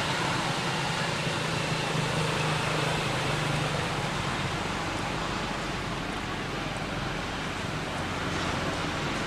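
Steady outdoor background noise: an even hiss, with a low hum underneath that fades out about four seconds in.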